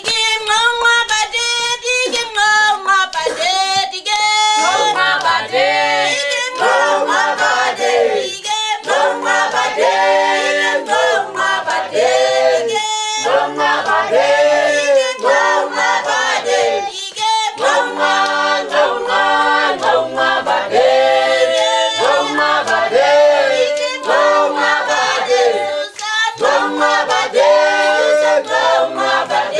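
A small group of women and men singing together unaccompanied in harmony, an a cappella choral song with low voices under higher ones.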